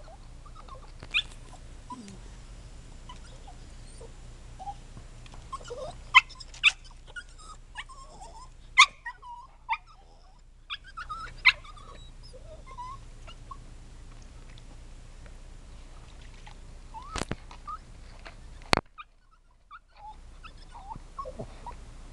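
Dogs whimpering and whining in short high-pitched calls, eager over a frog in the water that they can't reach. Two sharp clicks come near the end.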